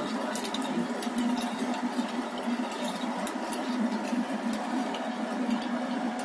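SQ100F electric pipe threading machine running steadily, its die head cutting a thread on a steel pipe, with a constant motor hum and many scattered light clicks.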